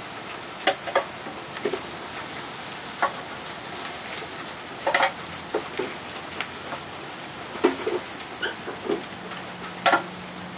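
Barbecue-sauced ribs sizzling on the grates of a hot gas grill, with scattered sharp clacks of metal tongs against the grate and a metal pan as the ribs are lifted off one by one.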